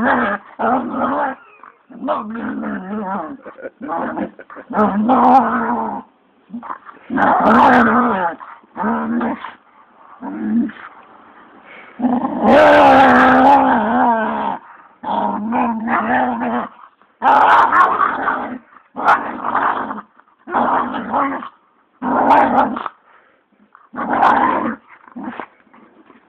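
German shorthaired pointer growling in a long string of pitched, drawn-out growls and groans, each lasting about half a second to two seconds, with the longest and loudest near the middle. It is play-growling while it tussles with a person's hand.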